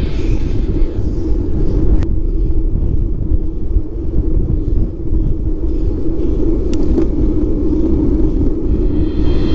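Steady low rumble of wind buffeting a handlebar-mounted GoPro's microphone, mixed with tyre noise from a road bike ridden at speed.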